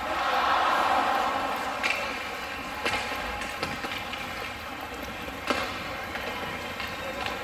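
Ice hockey game sounds in a rink: a steady wash of crowd and skating noise that swells in the first second or so, with a handful of sharp knocks of sticks and puck, the loudest about five and a half seconds in.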